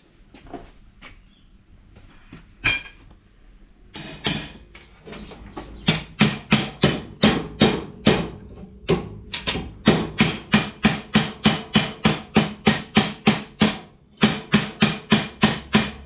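Hammer blows on the metal exhaust heat guard of a Honda CT125 motorcycle, bending it away from the exhaust to stop a rattle. A few separate strikes come first, then steady hammering at about four blows a second from about six seconds in, with a short break near the end.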